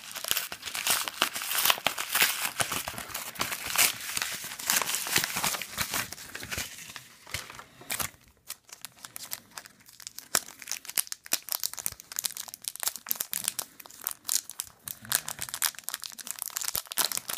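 Packaging being crinkled and torn open by hand, a kraft mailer envelope and a clear plastic sleeve around a pack of trading cards: dense, irregular crackling, with a short lull about eight seconds in.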